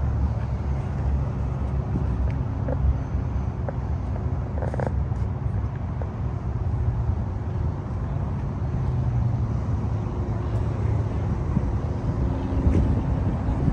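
Steady low rumble of a car engine idling, with a faint hum over it and a couple of light clicks around the middle.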